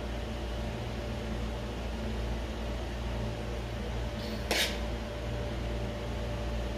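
Steady low hum of a fan or appliance motor, with a short hissing scrape about two-thirds of the way through.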